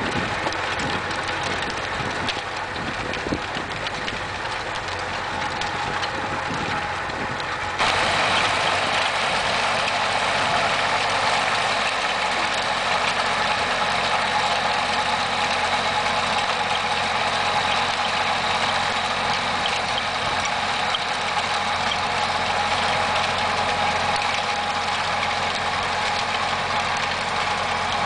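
Small vintage Renault tractor engine running steadily under load while it pulls a rear rotary tiller through the soil. The sound is more distant at first and steps up louder from about eight seconds in.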